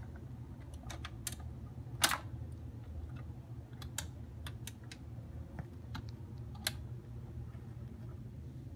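Zenith Circle of Sound record changer running with a record on the platter: a steady low hum with scattered sharp clicks, the loudest about two seconds in.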